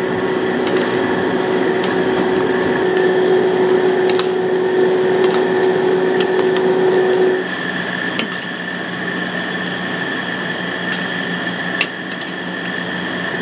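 Cubes of pork fat deep-frying in bubbling lard in a large wok, a steady sizzle with scattered clicks and scrapes of a metal ladle and spatula against the wok. A steady hum underneath stops about seven seconds in, where the sizzle also drops in level.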